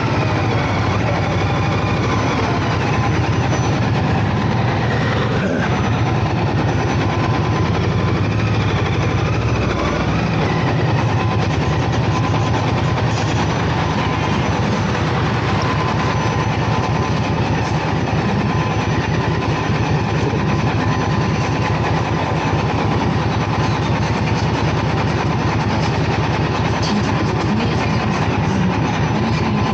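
Indian Scout Bobber's V-twin engine, its note falling as the bike slows in roughly the first ten seconds, then idling steadily.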